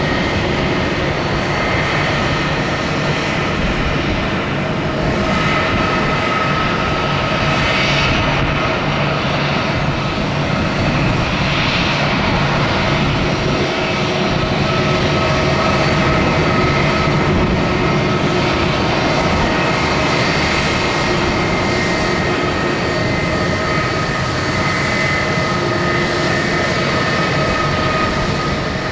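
Airbus A330-300 jet engines running, a steady rush with several whining tones held over it, the level staying even throughout.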